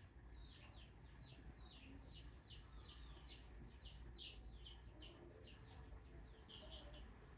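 Faint bird chirping: short, high, falling chirps repeated about three times a second without a break.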